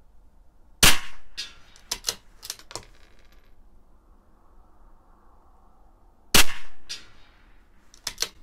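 Two shots from a CZ 457 LRP .22 LR bolt-action rifle, about five and a half seconds apart. Each shot is followed by a run of sharp metallic clicks as the bolt is worked to eject the case and chamber the next round.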